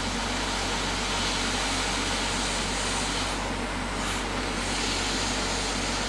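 Hot air rework station blowing a steady rush of air onto a circuit board, reflowing the solder under a small surface-mount transistor.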